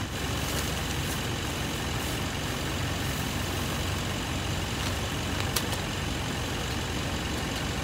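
Steady low mechanical hum, like an engine idling, under an even hiss, with one sharp click about five and a half seconds in.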